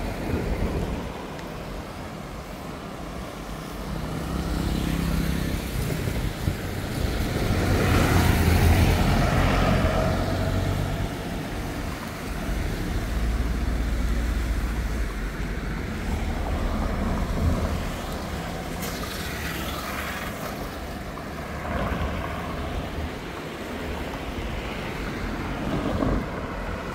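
Road traffic on a highway, vehicles passing one after another over a steady low rumble. The loudest vehicle goes by about eight to ten seconds in, and another about nineteen to twenty seconds in.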